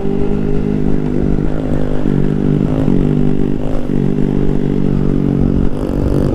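Motorcycle engine running at a steady cruising speed, its note dipping briefly a few times as the throttle eases, over a low wind rumble on the microphone.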